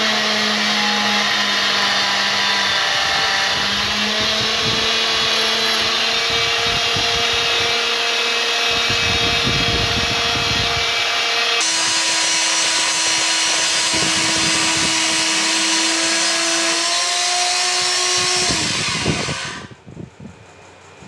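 Benchtop band saw running as it cuts metal bar stock, a steady machine noise with held whining tones. About nineteen seconds in it is switched off and winds down.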